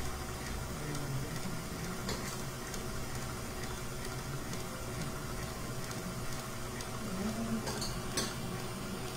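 Light scraping of a small spatula smoothing the edge of a baked cheesecake, with a few soft clicks (one about two seconds in, two near the end), over a steady low hum of room noise.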